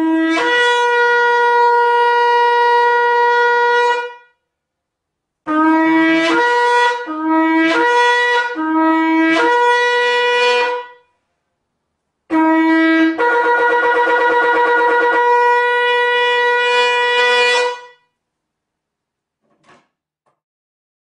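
Animal horn blown like a shofar in three calls. The first is one long blast that leaps from a lower note to a higher held one. The second breaks into three short low-high pairs. The third starts low, wavers rapidly for about two seconds, then holds the high note.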